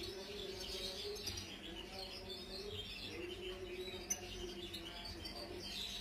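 Caged European goldfinch singing softly: a thin run of high twittering notes, over a faint low wavering tone. A single short tick about four seconds in.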